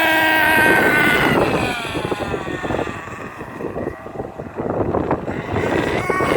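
Losi 8IGHT-T RC truggy's small nitro engine running at high revs, then falling in pitch as the throttle comes off, running rough and uneven, and revving up again near the end. Wind on the microphone.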